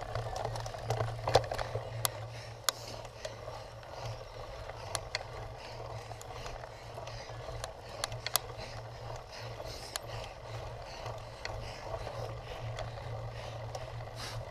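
Cyclocross bike being ridden over rough ground: a steady rumble of tyres and riding noise with scattered sharp clicks and rattles.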